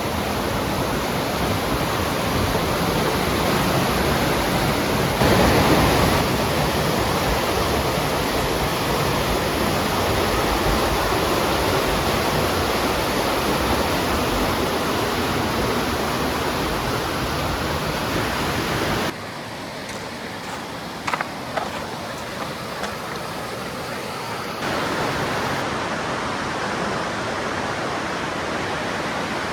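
Waterfall, a steady rush of falling water. It drops away and comes back slightly changed twice in the second half.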